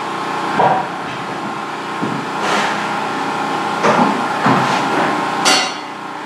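A few scattered knocks and bumps on wooden wall framing over a steady hum.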